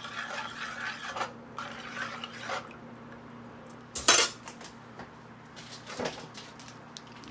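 A metal spoon stirring gravy in a nonstick frying pan, with soft scrapes against the pan. About four seconds in, the spoon is set down on foil on the stovetop with a loud clatter, followed by a smaller knock, over a faint steady hum.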